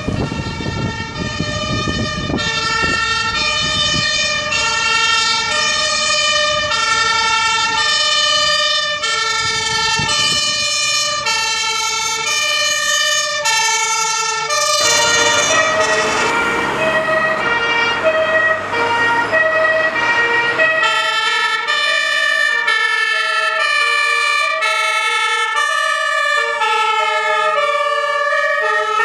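German fire engines' two-tone sirens (Martinshorn) sounding on an emergency run, stepping back and forth between two pitches in an even rhythm, with the truck's engine rumbling underneath in the first half. About halfway the sound cuts abruptly to another fire engine's two-tone siren.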